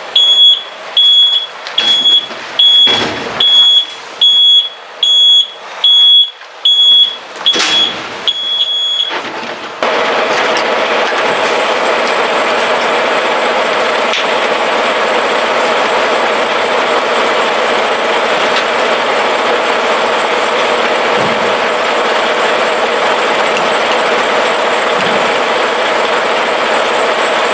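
A semi truck's reversing alarm beeping steadily, a little faster than once a second, as the tractor backs under its trailer to couple. About ten seconds in the beeping stops and the sound switches abruptly to the steady drone of the truck's engine running.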